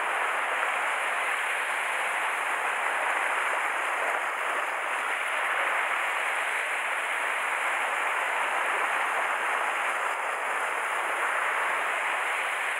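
Sea swell washing and foaming over shore rocks close by: a steady rushing hiss that holds at an even level without breaks.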